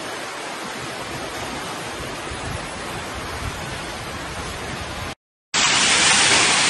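Steady rushing noise of severe storm wind and heavy driving rain. It cuts out briefly about five seconds in, then returns louder and hissier.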